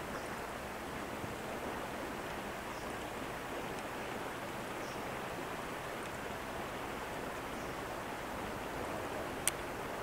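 Steady rush of flowing river water, with one sharp click near the end.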